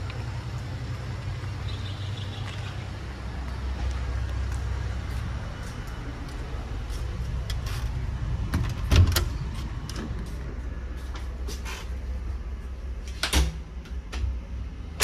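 Clicks and knocks of a door being handled: the loudest knock is about nine seconds in, and a few more clicks come near the end. A steady low rumble runs underneath.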